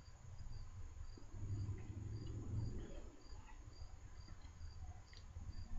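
A cricket chirping steadily, about two high chirps a second, over a low rumble that swells a second and a half to under three seconds in.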